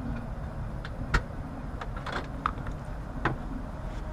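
Clicks and knocks of an air conditioner's electrical disconnect being pulled and handled, with a sharp knock about a second in and lighter clicks after, over a steady low background noise.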